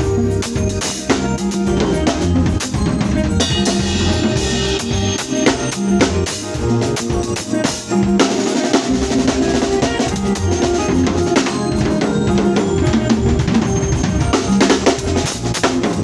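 A band playing in a sound check: a drum kit with kick, snare and rimshot hits keeps a steady beat under sustained bass and other pitched instruments.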